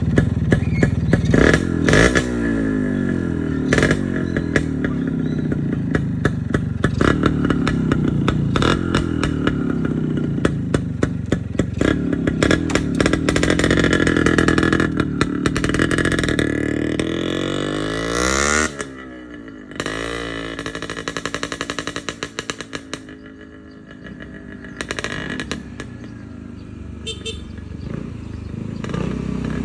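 Kawasaki Brutus 140 engine, stock bore, running through an aftermarket Tanay-made silencer: revved in short blips, then a long climb in revs that peaks and cuts off suddenly about two thirds of the way in. It settles back to a lower, uneven run with a string of sharp exhaust pops.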